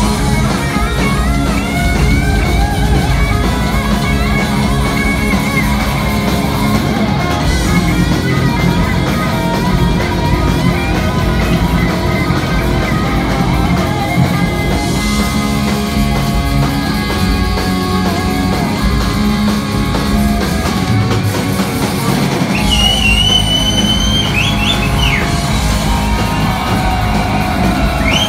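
Heavy metal band playing live at full volume: distorted electric guitars over a pounding drum kit in a mostly instrumental passage, with lead guitar lines bending above the riff.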